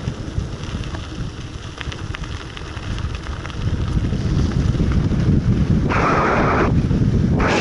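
Wind buffeting the microphone during a fast downhill ride: a steady rumble that grows louder about three and a half seconds in, with two short hissing surges near the end.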